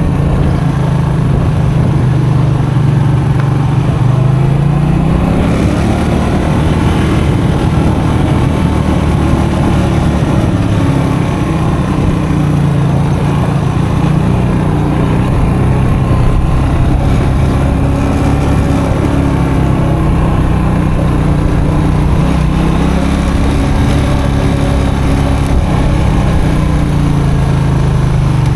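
Custom motorcycle engine running under way on a dirt road, its pitch rising and falling with the throttle: it climbs a few seconds in, then eases off and picks up again several times.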